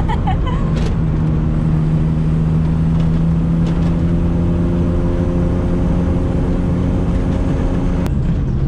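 Daihatsu Mira Turbo's 660 cc turbocharged three-cylinder engine pulling at a steady note, heard from inside the cabin over road noise. Near the end the engine note cuts off abruptly with a brief sharp click.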